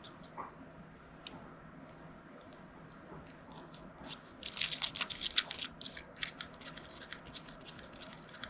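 Close-up crinkling and crackling with scattered small clicks. It grows dense and loudest from about four to six seconds in, then thins out to occasional clicks.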